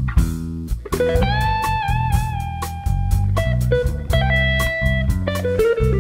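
Instrumental jazz-blues band: an electric guitar plays a lead line, holding one long note with vibrato about a second in, then shorter phrases, over electric bass and a drum kit with a steady cymbal pulse.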